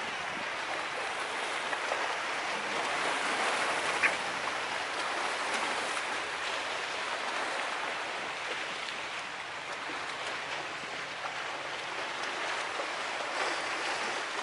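Steady hiss of water, with one brief click about four seconds in.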